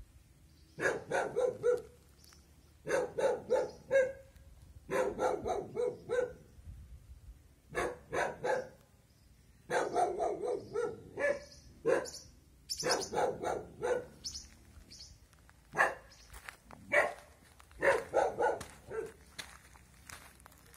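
An animal calling in repeated bouts, each a quick run of several short calls, with pauses of about a second between bouts.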